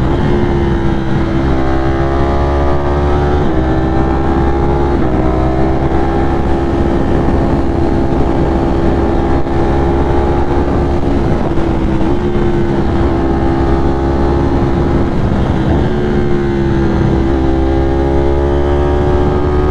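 Ducati Streetfighter V4 motorcycle's V4 engine running at a steady cruising speed under light throttle. Its pitch steps a little a few times as the throttle and gears change.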